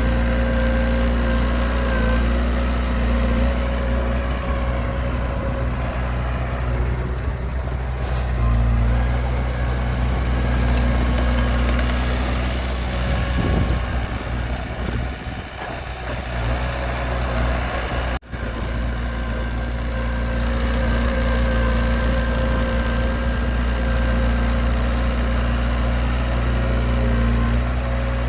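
Heavy diesel engine of earthmoving machinery running steadily at low revs with a deep, even drone. The sound dips a little past the middle and cuts out for an instant.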